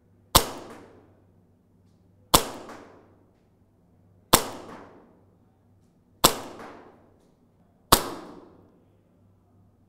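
Tokyo Marui Hi Capa 5.1 gas blowback airsoft pistol fired on green gas through a chronograph. Five sharp single shots about two seconds apart, each dying away quickly.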